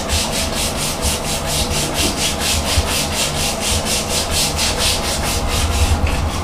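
A scrub brush scrubbing a tiled bathroom floor back and forth in quick even strokes, about four a second, working liquid caustic soda into hard-water deposits.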